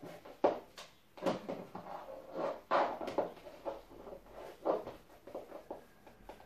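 Stiletto heels knocking irregularly on a laminate floor as a pair of high heels is stepped into and shifted about in, with softer rustling between the knocks.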